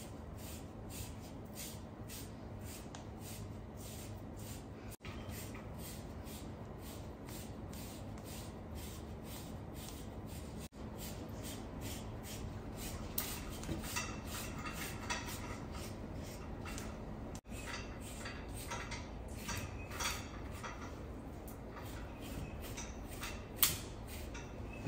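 A de-shedding rake being drawn through a basset hound's short coat in quick, regular scratchy strokes, about two a second, pulling out loose undercoat, with a sharper click near the end.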